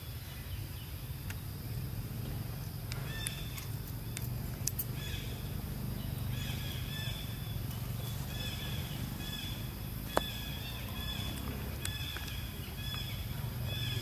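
Short high-pitched animal chirps repeated several times a second from about three seconds in, over a steady low hum, with a few sharp clicks, one standing out about ten seconds in.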